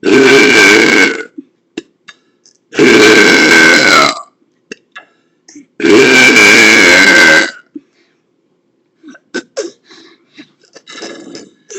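Three long, loud, deliberate burps, each lasting about a second and a half and coming about three seconds apart, with short faint sounds between them.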